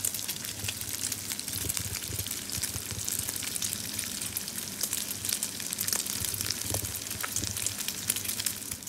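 Diced pork back fat sizzling in a frying pan as it renders into pork oil: a steady hiss dotted with many small crackling pops.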